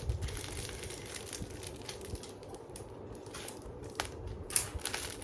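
Packaging being handled and unwrapped, crinkling and crackling irregularly, with a few sharp clicks near the end.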